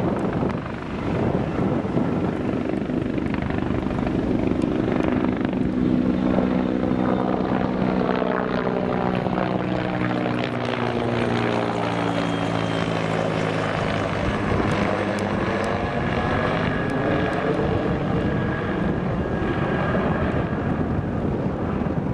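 Bell CH-146 Griffon helicopter flying past overhead, its rotor and turbine sound steady and loud. Its tones drop in pitch as it passes overhead about ten seconds in.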